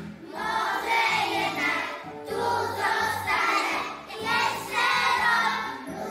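A group of young preschool children singing a song together in unison, with musical accompaniment, in phrases of about two seconds.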